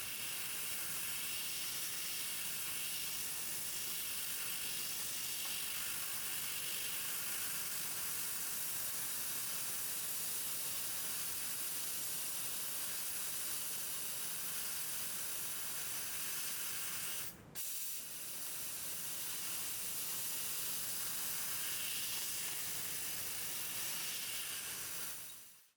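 1500 W fiber laser cutting machine cutting metal: a steady hiss from the cutting head's gas jet. It breaks off for a moment about two-thirds of the way through and fades out at the end.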